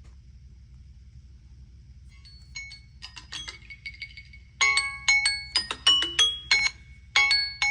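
Samsung Galaxy phone ringing with a melody of short, bright marimba-like notes. It starts softly about two seconds in and grows much louder about halfway through.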